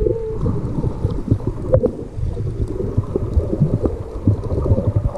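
Muffled underwater noise picked up by a submerged camera: a dense low rumble of moving water with many small clicks and crackles scattered through it.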